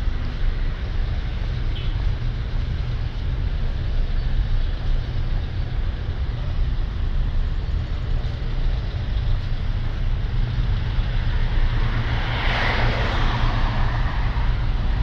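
Street traffic ambience: a steady low rumble of road noise, with one vehicle passing close by, swelling and fading about twelve seconds in.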